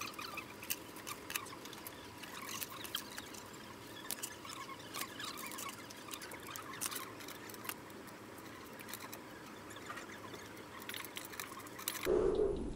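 Small desk items and clear plastic storage boxes being handled and sorted: a quiet, irregular run of light clicks, ticks and rustles.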